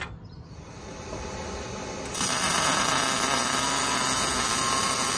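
Wire-feed (MIG) welder laying a weld bead on a steel frame bracket: a loud, steady hiss that starts about two seconds in.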